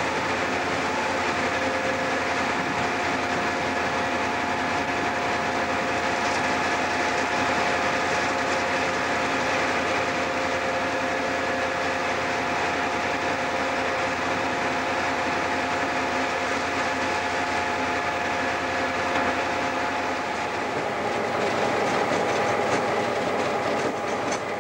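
Diesel locomotive running along the line, heard from its own side walkway: a steady engine drone with several held whining tones over the rolling noise of the train.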